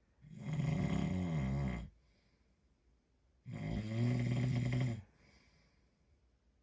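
A man snoring: two long snores, each about a second and a half, some three seconds apart, with quiet between them.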